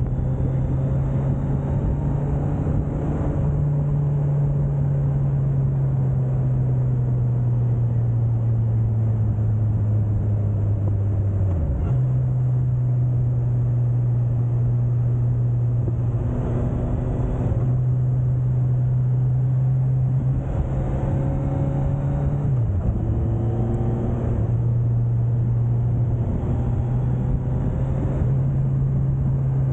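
Suzuki GSX1250FA's inline-four engine running at steady riding revs under a haze of wind and road noise. Its note dips and picks up again twice, about a third of the way in and again past two-thirds, as the throttle comes off and back on through the bends.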